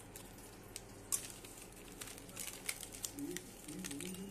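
Sparse light clicks and ticks of kitchen handling, the sharpest about a second in and a cluster near the end. From about three seconds in, a faint voice is heard in the background.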